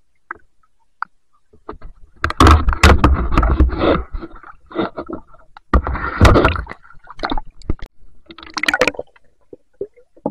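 Water splashing and sloshing with scraping and knocking, in three loud spells about two, six and eight and a half seconds in, as a speared fish is handled at the water's surface.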